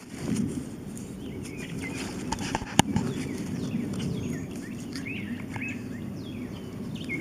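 Small birds chirping, many short quick calls, over a steady low noise, with one sharp click a little before three seconds in.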